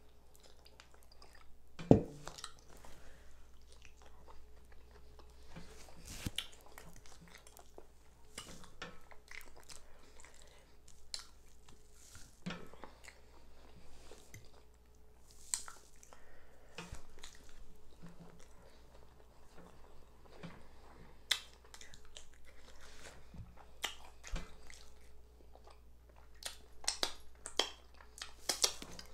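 Chewing and mouth sounds of someone eating fried liver and mashed potatoes, with scattered small clicks and a sharp knock about two seconds in.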